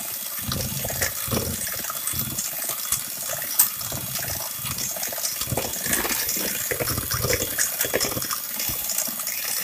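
Electric hand mixer running, its beaters churning thick buttercream frosting in a bowl, with scattered sharp clicks as the beaters knock against the bowl.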